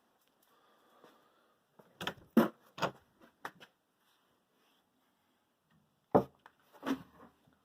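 Irregular footsteps and knocks, several close together about two seconds in and two more about six seconds in.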